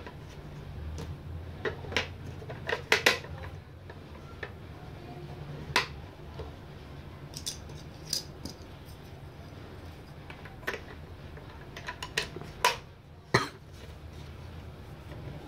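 AA batteries being pushed into the plastic battery compartment of a digital postal scale, with the hard plastic case handled: a scattering of sharp clicks and taps.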